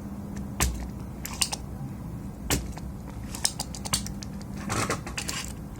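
Scattered light clicks and taps of small tools and parts being handled on a workbench, some coming in quick clusters, over a steady low hum.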